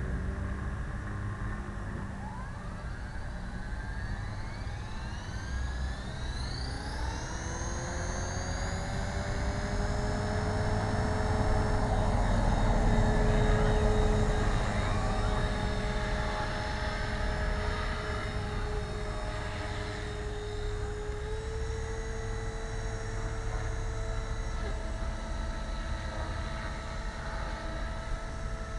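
450-size electric RC helicopter (HK450, a T-Rex 450 clone) spooling up: the whine of motor and rotors climbs steadily in pitch over several seconds toward a headspeed of about 3000 rpm. It then holds a steady whine as it lifts off and flies, shifting pitch slightly now and then, loudest about halfway through.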